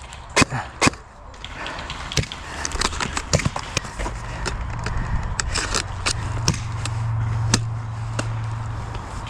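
Scattered sharp cracks of airsoft guns firing single shots and short strings at irregular intervals. A low steady hum comes in about four seconds in.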